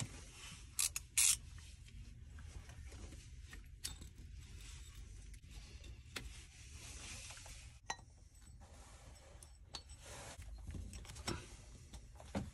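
Faint handling sounds of a new rubber V-belt being worked onto the water pump and crankshaft pulleys of a boat's inboard engine: light rubbing and scraping, with two sharp clicks about a second in and a few fainter ticks.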